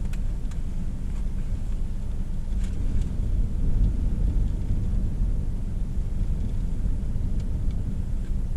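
Heavy storm surf breaking offshore, a steady low rumble with wind buffeting the microphone, swelling a little about three to four seconds in.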